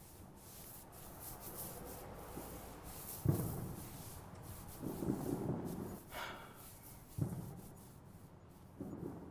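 Soft rubbing and brushing of head pats and hair stroking close to the microphone, with stronger strokes about every two seconds.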